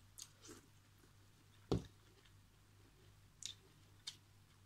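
Spoon and fork clicking against a metal cooking pan while lifting food, a handful of short soft clicks with one louder knock a little under two seconds in.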